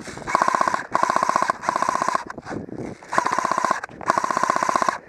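Electric airsoft gun firing on full auto in five rapid bursts: three in quick succession, then two more after a short pause about halfway through. Each burst is a fast, even rattle of shots over the whine of the motor and gearbox.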